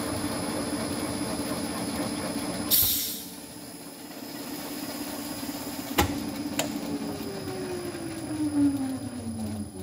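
Valve-guide spot-facing machine cutting on a cast-iron Pontiac cylinder head: the spindle runs with a steady hum, then a short loud hiss about three seconds in, after which it goes quieter. A sharp click comes about six seconds in, and near the end a whine falls steadily in pitch.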